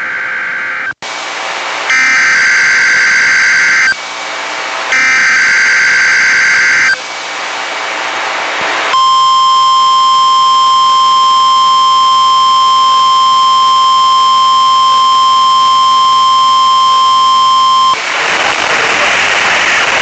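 NOAA Weather Radio alert coming over the air: three bursts of SAME header data about a second apart, then the steady 1050 Hz weather-radio warning alarm tone for about nine seconds. The tone cuts off into radio static hiss.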